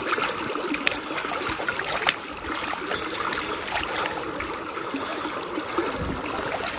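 Small creek running steadily, with a few short splashes as a small trout is released from a landing net held in the water.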